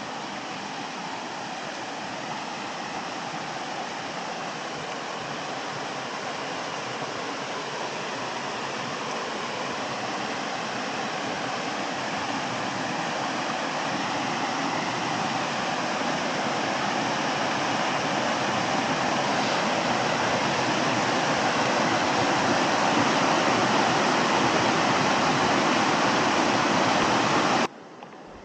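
Rushing water of a rocky stream and waterfall, a steady hiss that grows gradually louder, then cuts off suddenly near the end.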